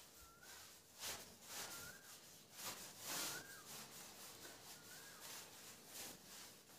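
Faint strokes of writing on a board, with a short rising chirp heard four times, about one and a half seconds apart.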